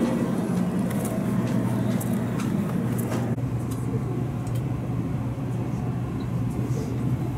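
Steady low hum inside a Shinkansen carriage standing at a station platform, with a few faint light clicks in the first few seconds.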